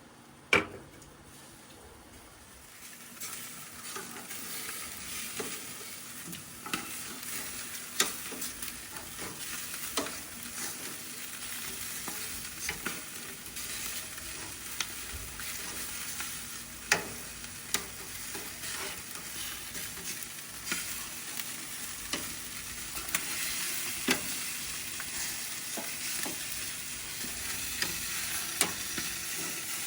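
Meat sizzling on a charcoal mangal grill, a steady hiss that builds up about three seconds in and grows stronger near the end, broken by sharp clicks and pops every few seconds.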